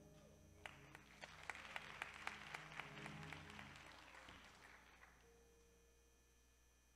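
Faint audience applause with scattered sharp claps, building about a second in and dying away by about five seconds.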